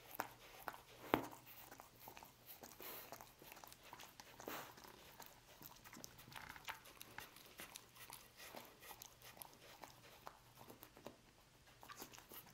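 A dog licking roast beef scraps off a wooden board: a run of small wet tongue smacks and clicks, with one sharper click about a second in.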